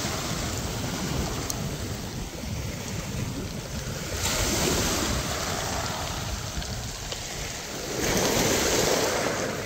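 Sea waves washing on the shore with wind buffeting the microphone; the wash swells louder twice, a little after four seconds in and again near the end.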